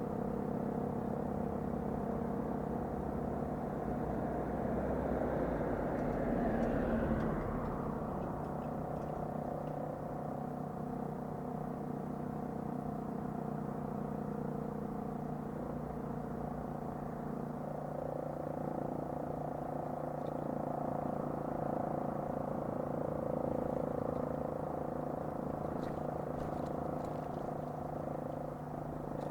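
Motor siren sounding the noon time signal, held at a steady pitch, with a brief swell of rushing noise around six seconds in.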